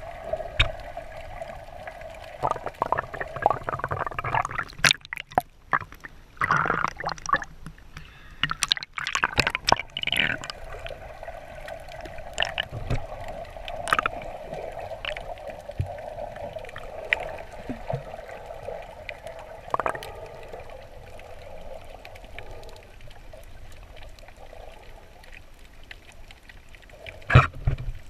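Underwater sound picked up by a camera in its housing: muffled gurgling and bubbling water over a steady hum, with bursts of bubbling and clicking in the first third. There is one sharp knock near the end.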